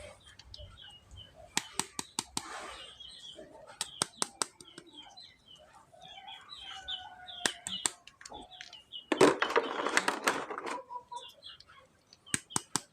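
Toys and their plastic packaging being handled: groups of sharp clicks, and a rustle about a second and a half long two-thirds of the way through. Short bird chirps sound in the background.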